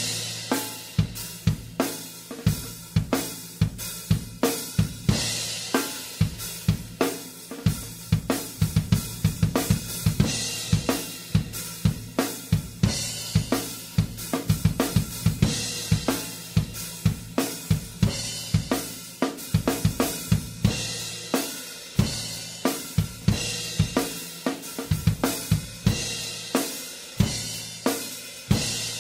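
Isolated drum-kit track: a drummer playing a steady rock groove on kick drum, snare, hi-hat and cymbals, with no other instruments.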